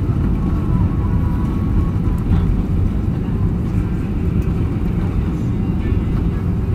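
Cabin noise of an Airbus A320-family jet during its landing roll: a steady low rumble of the engines and the wheels running on the runway.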